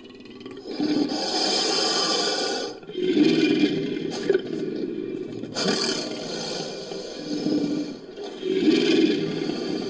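Designed creature calls: four long roars and growls in a row, one after another, built by layering lion, jaguar, leopard and crocodilian recordings.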